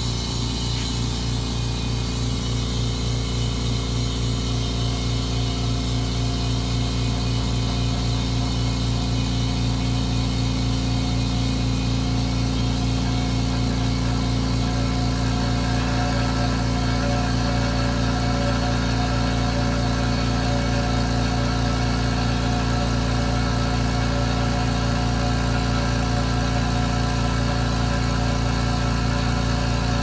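Husky 4.6-gallon Silent Flow (4610A) 1 HP air compressor running steadily, a constant motor-and-pump hum that reads about 83 dB on a sound meter.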